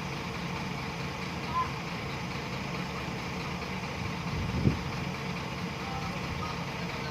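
Heavy diesel engine running steadily at idle, with one sharp thump a little past halfway.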